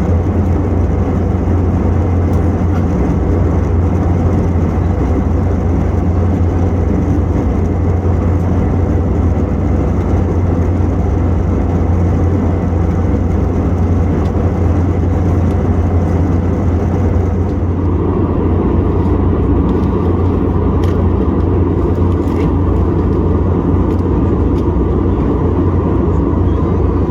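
Airbus A321 cabin noise: a loud, steady low rumble from the engines and air, its tone changing suddenly about two-thirds of the way through.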